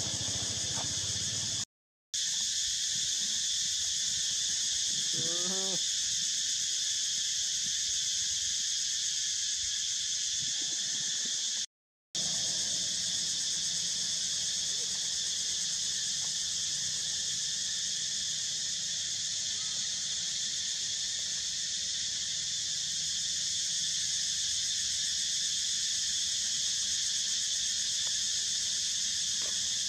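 Steady high-pitched insect drone from the surrounding forest. About five seconds in there is a short rising squeal, with two brief drops to silence.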